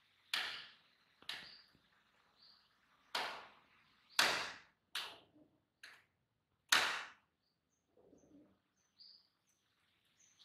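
Rock pigeons fighting with their wings: a series of sharp wing claps and swishes, about seven in all, coming singly at uneven intervals.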